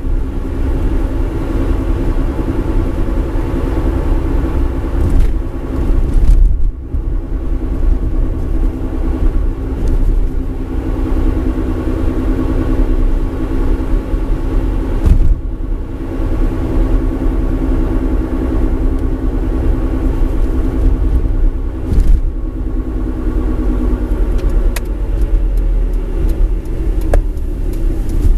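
Mitsubishi eK Sport on the move: steady road and drivetrain noise with a droning hum from the left front wheel, the sign of a failing left front hub bearing. The sound dips briefly three times.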